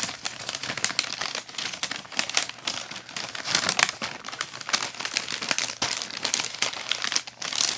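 Wrapping paper crinkling and rustling as it is handled and folded around a present, in a dense run of quick crackles.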